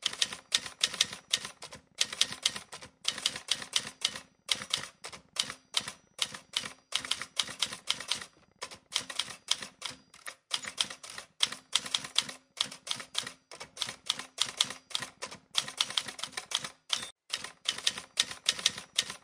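Typewriter sound effect: rapid key clacks in quick runs, several a second, broken by short pauses.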